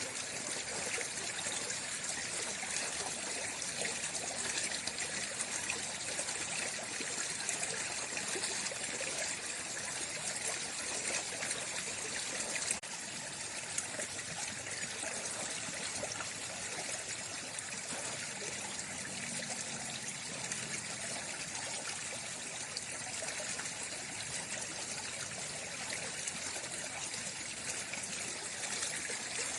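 Water flowing steadily, an even rushing hiss that is brightest in its upper range, with a slight step down in level near the middle.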